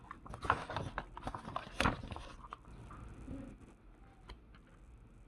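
Paper catalogue pages being handled and turned: a run of rustles and crisp flicks in the first two and a half seconds, the loudest a little before two seconds in, then only a few faint ticks.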